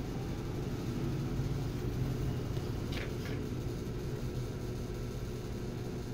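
Steady low machine hum from the repair bench, with a brief faint hiss about three seconds in.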